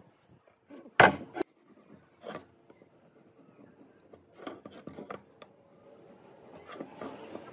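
Tools handled on a wooden workbench and a wooden marking gauge scribing pine: a loud scrape about a second in, then softer scratching strokes.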